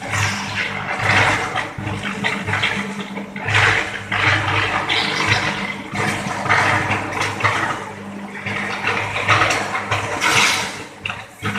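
Electric arc furnace running: an irregular, surging roar with a steady low hum underneath.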